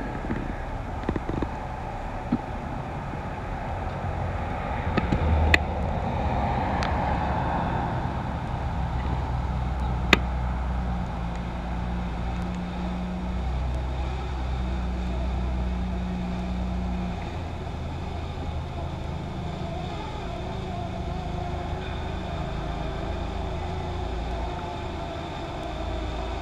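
A motor vehicle's engine running, a steady low rumble whose pitch shifts in small steps, with two sharp clicks about five and ten seconds in.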